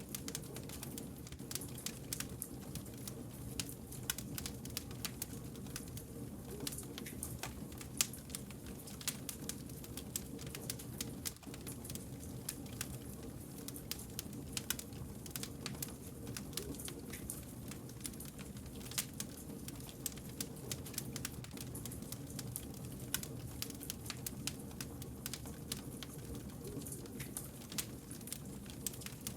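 Wood fire crackling: dense, irregular small snaps and pops over a steady low rumble of the burning logs, with one louder pop about eight seconds in.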